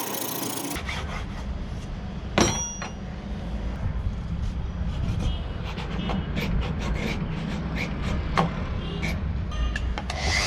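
Workshop sounds of cricket bat repair: a brief rasp of a file on wood, then a sharp knock about two seconds in and scattered light clicks and taps of tools on wood over a steady low hum.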